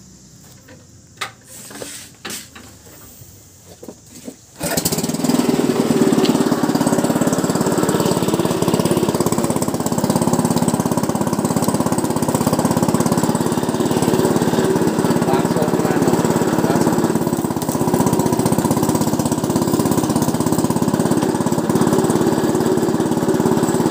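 A few knocks, then about four and a half seconds in the small engine that drives a sugarcane juice machine starts and runs steadily with a fast, even pulsing, turning the belt-driven rollers that crush the cane.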